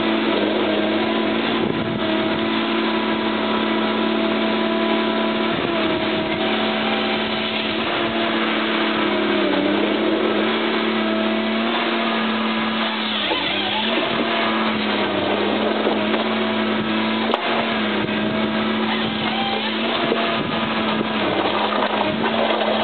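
Tigercat tracked harvester's diesel engine running steadily while it processes logs, its pitch dipping briefly about 13 seconds in. A single sharp click comes about 17 seconds in.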